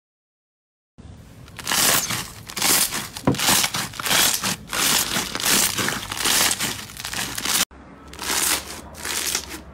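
Crunchy, textured slime squeezed and kneaded by hand, crackling in irregular repeated bursts that start about a second in.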